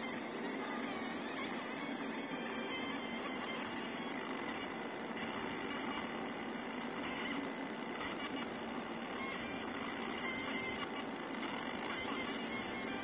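A 100 W fiber laser marking machine at work on a coated cup: a steady hiss with a high-pitched buzz that breaks off briefly a few times.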